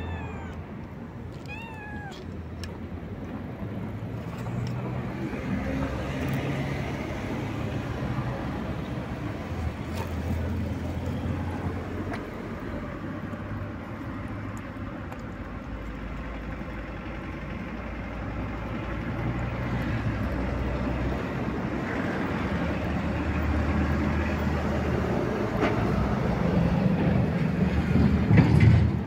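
Young cat eating chunks of wet cat food from a metal plate, with a few short meows near the start. A steady low rumble runs underneath and grows louder near the end.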